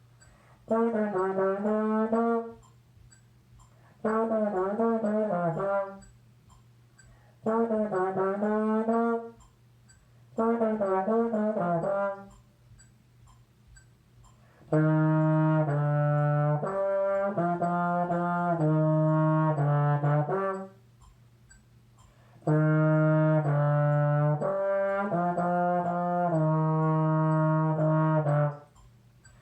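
Solo trombone playing six phrases with pauses between them: four short phrases of about two seconds, each with a wavering pitch, then two longer phrases of steady, stepped notes.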